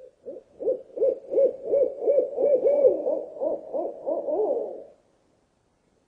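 An owl hooting in a fast series of short notes, about three a second, with a second overlapping run of hoots joining partway through. The calling stops about five seconds in.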